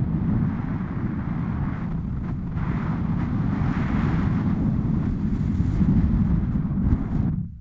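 Wind rushing over a pole-held camera's microphone as a tandem paraglider flies: a steady, heavy rumble that drops away sharply near the end.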